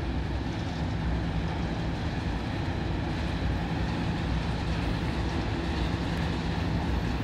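Diesel locomotive engine idling, a steady low drone.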